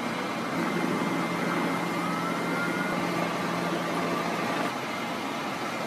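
Outdoor street din with the steady engine hum of fire trucks running at the scene. The hum drops out a little before the end.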